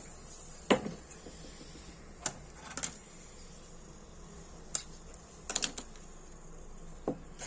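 A handful of short, sharp clicks and taps from a small metal Ronson Comet lighter being handled and worked on a workbench. The sharpest knock comes under a second in, and a quick cluster of clicks comes a little after halfway.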